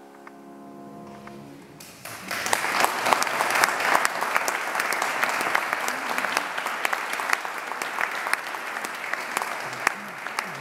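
The last chord of a grand piano rings out and fades, then about two seconds in an audience breaks into steady applause, many hands clapping.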